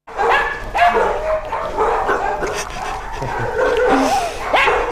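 A dog vocalizing in a rapid, continuous run of yips and whines, each call sliding up and down in pitch.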